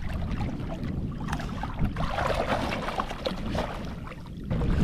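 Wind rumbling on the microphone, with water lapping against the hull of a small boat.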